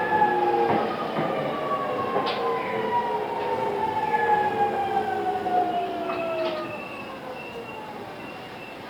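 Running sound inside a JR East E217-series motor car in its original form: the GTO-VVVF inverter and traction-motor whine falls steadily in pitch as the train slows under braking, with rail noise under it. The whine fades about seven seconds in, leaving quieter rolling noise and a thin high squeal.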